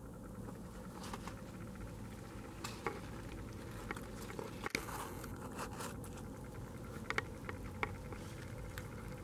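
Faint scattered clicks and small crackles over a low steady background hum.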